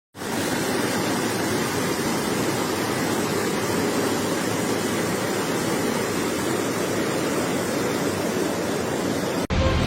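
Torrential rain of a black rainstorm pouring down, a steady, even rush of water that cuts off suddenly near the end.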